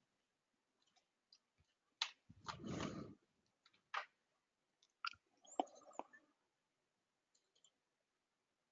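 Near silence broken by a few faint, isolated clicks and one brief muffled noise about two and a half seconds in.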